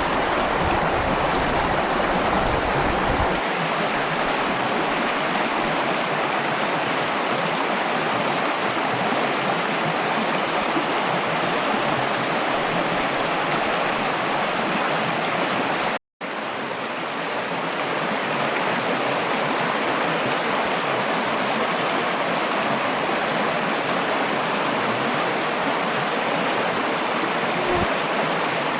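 Mountain stream flowing steadily: an even rush of water over rocks, broken once by a split-second gap about sixteen seconds in.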